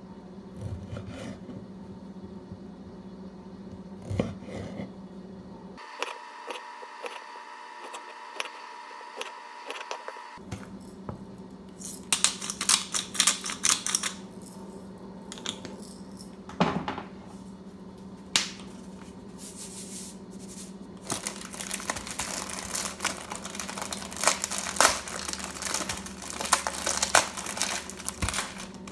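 Kitchen handling sounds: plastic packaging rustling and crinkling in two stretches, the longer one near the end, with scattered clicks and knocks. About six seconds in, a steady humming tone sounds for about four seconds.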